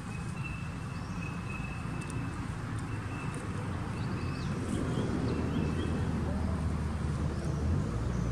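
Outdoor ambience: a steady low rumble that grows slightly louder, an on-off thin high tone, and a few short high chirps around the middle.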